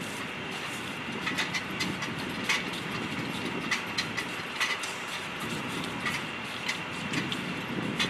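Irregular sharp metallic clicks and taps from hand tools being worked at an aircraft wheel and axle jack, over a steady background hiss.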